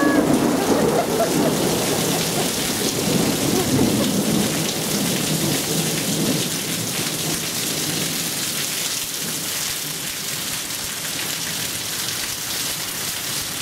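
Heavy thunderstorm downpour: a steady hiss of pouring rain, with a rolling rumble of thunder that fades out about halfway through.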